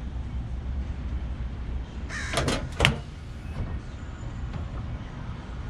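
Latch and lid of a UWS low-profile side-mount truck tool box being opened: a short creaking rasp about two seconds in, then a sharp click, followed by a few light knocks.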